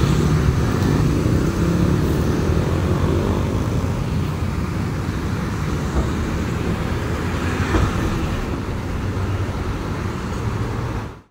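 Diesel engine of a heavy-haul prime mover running as it tows a loaded multi-axle trailer slowly past and away, its low rumble gradually fading.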